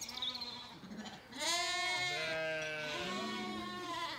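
Zwartbles ewes and lambs bleating. From about a second and a half in, several long calls overlap at once, some deep and some higher.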